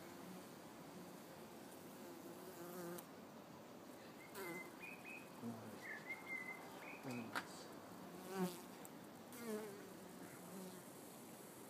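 Honeybees buzzing around their nest, several flying close past the microphone so that each buzz swells and rises and falls in pitch as it passes; the loudest pass comes about eight and a half seconds in.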